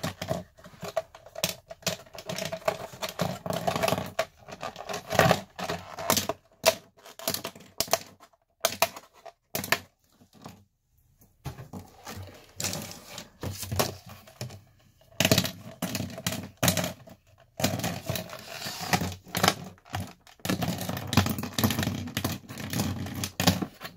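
Sharpie markers being pulled out of a clear plastic packaging tray and clattering onto a wooden tabletop, with the plastic tray rattling as it is handled: a run of irregular clicks and knocks, with a short pause about halfway through.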